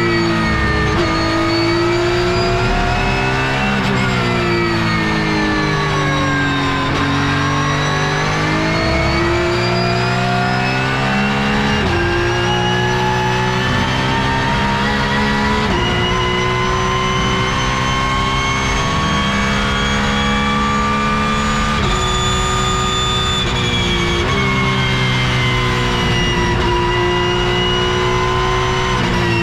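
Porsche 911 GT3 Cup's naturally aspirated flat-six heard from inside the cockpit at racing speed, climbing in pitch under full throttle and dropping abruptly at each upshift, with stretches where the note falls away as the car slows for corners.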